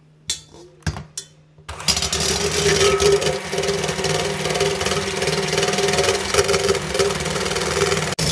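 Electric hand mixer running, its beaters whirring through ingredients in a stainless steel bowl. A few sharp clinks come first, and the motor starts about two seconds in.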